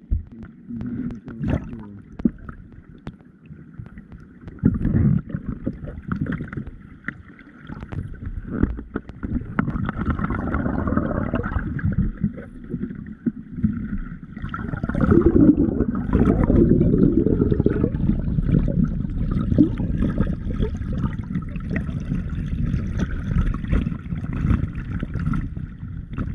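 Stream water rushing and sloshing close to the microphone, with an irregular low rumble. It grows louder and steadier about halfway through.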